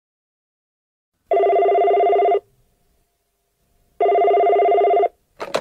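Telephone ringing twice, each ring a steady electronic tone about a second long. Short clicks follow near the end as the call is picked up.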